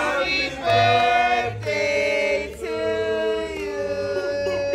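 Singing with music: long held sung notes that change pitch every second or so, over a steady low beat.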